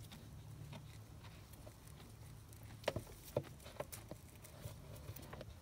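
Faint crackles and clicks from fingers pinching and rubbing a coarse, crumbly seasoning mix of cracked peppercorns, sea salt and roasted ricotta close to the microphone. Two sharper ticks come about three seconds in.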